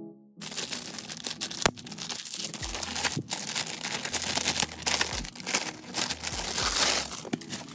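A mail package being opened by hand: its wrapping crinkling and tearing in a dense, continuous crackle, with a few sharp clicks.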